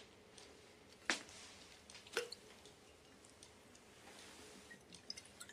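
A glass bottle of spirits being opened by hand, with two sharp clicks about a second apart from the cap or cork. Near the end come faint small clicks and wet swallowing sounds as it is drunk from.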